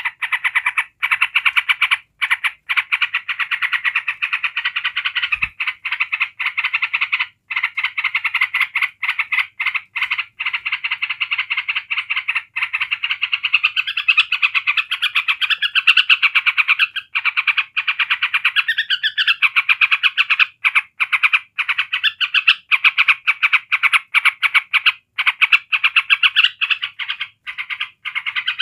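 Yellow-vented bulbul giving its rapid, nonstop rattling chatter (the "ngebren"), with only brief breaks. This is the excited rattle that bird-keepers use to provoke other bulbuls.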